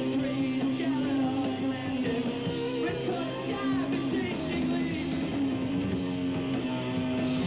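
Punk rock band playing live: electric guitars over a steady full-band sound, with the singer's voice at the microphone.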